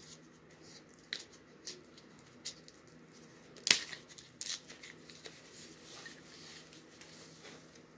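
Foam packing wrap crinkling and crackling as hands unwind it from a wrapped item, in scattered sharp crackles with one louder crackle about halfway through.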